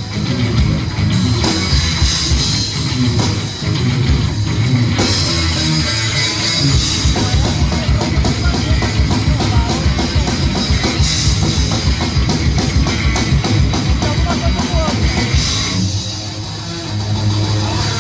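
Rock song played by a band: electric guitars over a busy, steady drum kit.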